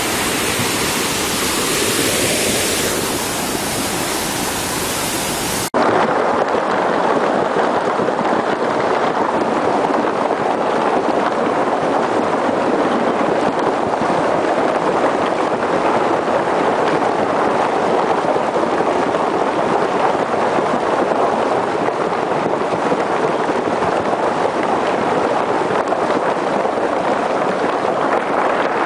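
Muddy flash-flood torrent rushing, a loud, steady wash of water noise. About six seconds in it cuts abruptly to another recording of floodwater rushing in much the same way.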